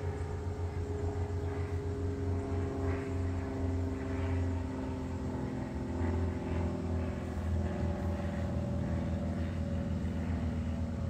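Ferrari Purosangue's V12 engine idling steadily, its pitch easing down slightly over several seconds.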